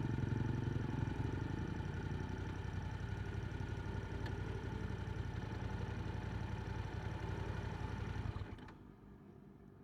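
Yamaha R7's 689 cc parallel-twin engine with an Akrapovic exhaust idling steadily, then cutting off about eight and a half seconds in.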